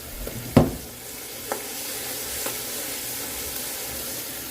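Seasoned chicken sizzling in a pan over high heat. A utensil knocks hard against the pan about half a second in, then lightly twice more a second apart.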